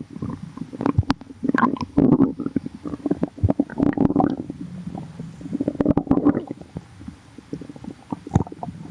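A person's stomach growling: bubbly gurgles in irregular surges, studded with many quick pops.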